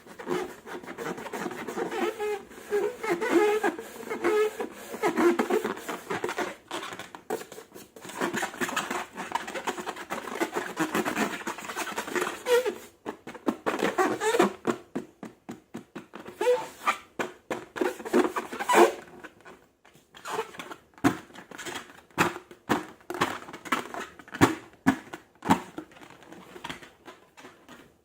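Slime being handled and squeezed, giving sticky, crackling clicks: a dense crackle for about the first half, then sparser separate clicks and pops.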